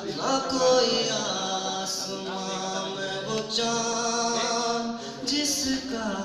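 A man singing unaccompanied into a microphone, a slow melody with long held notes.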